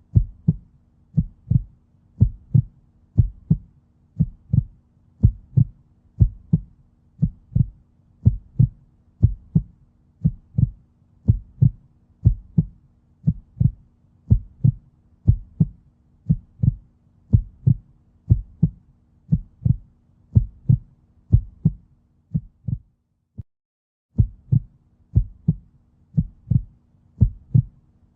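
Heartbeat, a steady rhythm of paired lub-dub beats at about one a second, over a faint steady hum. The beats drop out for about a second near the end, then carry on.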